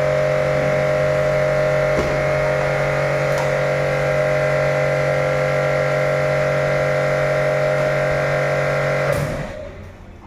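A steady mechanical hum at a constant pitch, fading out about nine seconds in.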